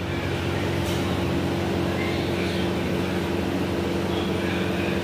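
Steady mechanical hum with a constant low tone and even background noise, unchanging throughout.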